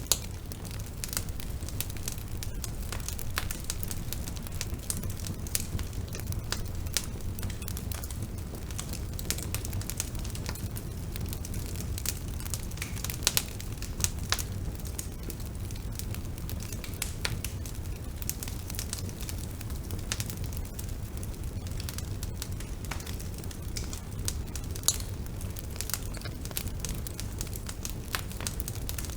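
Bonfire burning: a steady low rumble of flames with frequent irregular crackles and the odd louder pop from the burning wood.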